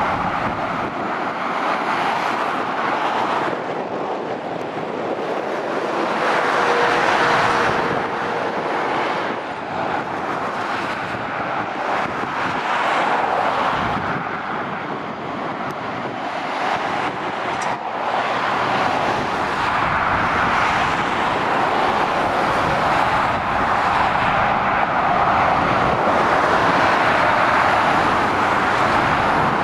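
Road traffic passing below: lorries and cars going by at speed, a steady tyre-and-engine rush that swells and fades as each vehicle passes.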